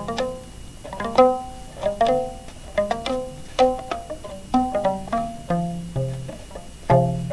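Homemade bowl harp, strings stretched over a clear plastic bowl, plucked with the fingers: a slow run of single notes, each ringing briefly and dying away, with deeper notes joining in the second half.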